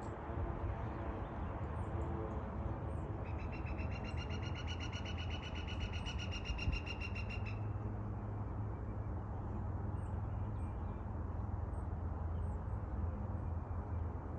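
A fast, even run of taps on ringing metal, lasting about four seconds and starting a few seconds in, over a steady low rumble. It is taken to be a woodpecker drumming on a metal chimney, though that is not certain.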